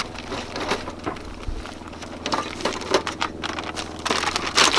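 Irregular crunching footsteps over a steady low hum.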